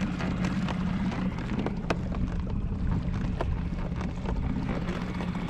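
Small outboard motor running steadily at low speed, a low even hum, with wind noise on the microphone.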